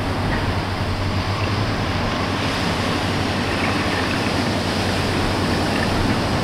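Waves washing on the beach, mixed with the steady low drone of the working crane barge's engines.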